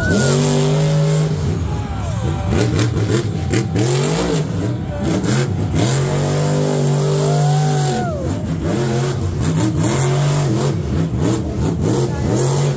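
Grave Digger monster truck's supercharged V8 engine revving up and down several times as the truck drives.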